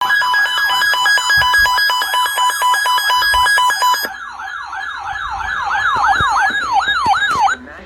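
Electronic siren: for about four seconds it alternates rapidly between two tones, then it switches to repeated rising-and-falling sweeps that speed up. It cuts off suddenly near the end.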